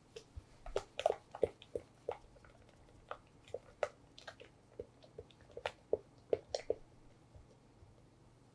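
Spatula folding thick, creamy cheesecake batter in a metal mixing bowl: a run of short, irregular clicks and smacks that stops about seven seconds in.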